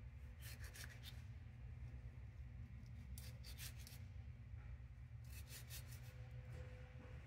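Kitchen knife slicing strawberries held in a gloved hand: three short bursts of quick, soft cuts, each a couple of seconds apart, over a faint low hum.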